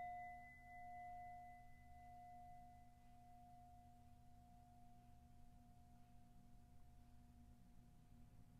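A small metal singing bowl ringing after a single strike. It holds one clear low tone that fades slowly, and a higher overtone that dies away within about three seconds.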